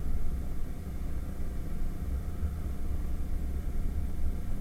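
Wind buffeting the action-camera microphone while riding a 110cc moped, with the moped's engine running steadily and faintly beneath the rumble.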